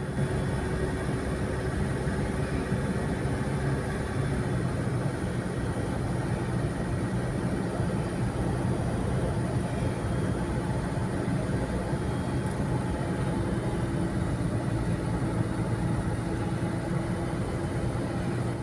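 Steady road and engine noise inside the cabin of a 2004 Ford Everest automatic with a turbo-intercooled diesel, cruising at about 80 km/h on a concrete highway: a low drone and tyre rumble with a faint steady hum over it.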